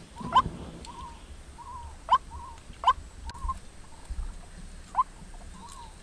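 Bird calls: short, sharp rising chirps every second or so, with softer arched notes between them.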